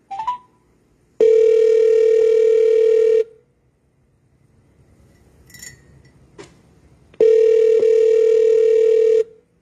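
Telephone ringback tone heard over the line: two long, steady rings of about two seconds each, four seconds apart, in the North American ringing cadence, while a call rings through before it is answered. A short chirp comes right at the start and a faint click in the gap.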